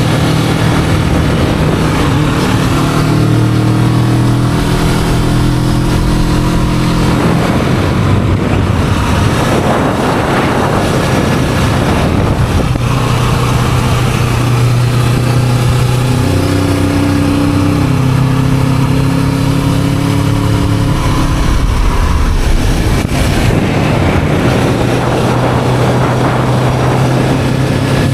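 Bone-stock Kawasaki Vulcan S 650 parallel-twin running on the move through its stock exhaust, the engine note stepping up and down several times with speed changes. Heavy wind noise buffets the action camera's built-in microphone throughout.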